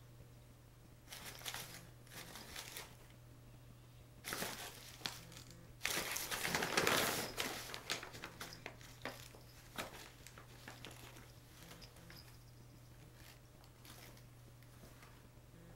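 A brown paper shopping bag crinkling and rustling in bursts as two cats tussle in and around it. The loudest, longest rustle comes about six to seven and a half seconds in, with lighter scattered rustles and taps after, over a faint steady low hum.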